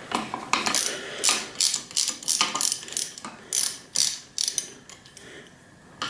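Ratchet wrench clicking in a quick run of strokes as a long 6 mm hex socket unscrews the bolt holding a suspension fork's lowers; the clicks thin out and go quieter near the end.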